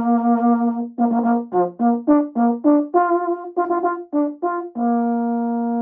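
A solo brass instrument playing a short melody: a held note, a quick run of short notes, then a long held note near the end.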